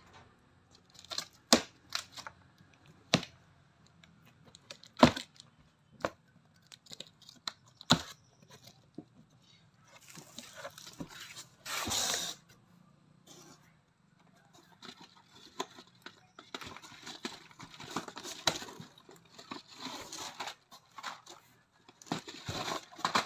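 A cardboard carton being opened by hand: a few sharp knocks and taps as the flaps are lifted, then a loud tearing, scraping burst about eleven to twelve seconds in as packing tape and a cardboard liner come away. Steady rustling and sliding of small cardboard boxes being handled follows.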